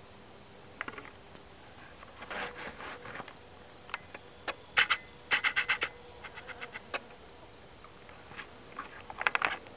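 Steady high-pitched chorus of insects, with short clicking bursts scattered through, several in quick runs.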